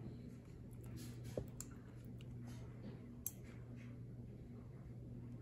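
Quiet handling sounds of thick tomato sauce being spooned into a plastic zipper freezer bag: faint clicks and soft rustles of the bag, with two sharper ticks, over a steady low hum.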